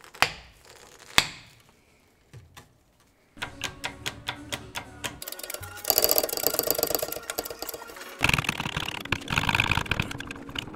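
Two sharp snaps as heavy-duty Knipex cable cutters go through thick battery cable. After a pause comes a quick run of mechanical clicks, denser and louder about six seconds in, from a hand-pumped hydraulic crimper pressing a lug onto the cable.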